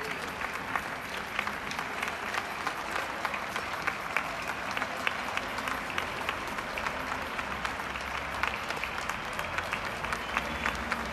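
Sustained applause from many people clapping, a dense even patter with individual sharp claps standing out throughout.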